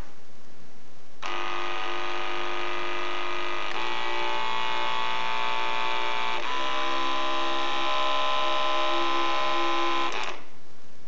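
Oster A6 electric dog clipper motor and blade running with a steady buzzing hum. Its pitch changes twice, a few seconds apart, as the clipper is switched between its low, medium and high speeds, and it is switched off near the end.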